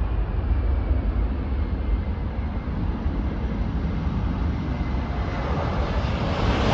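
Airbus A380's four turbofan engines heard at a distance: a steady low rumble with a faint whine, starting to grow louder at the very end.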